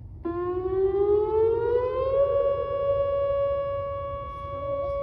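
Whelen 2910 solar-powered electronic outdoor warning siren sounding its growl tone, heard from inside a car. It starts about a quarter second in, winds up in pitch for about two seconds, then holds a steady, loud tone.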